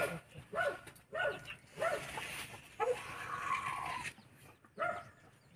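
A run of short animal calls, about two a second, then one longer held call around the middle and another short one near the end.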